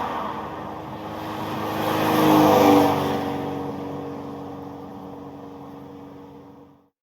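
Road traffic: a car drives past about two and a half seconds in, its engine note dropping in pitch as it goes by, then fading away. The sound cuts off abruptly near the end.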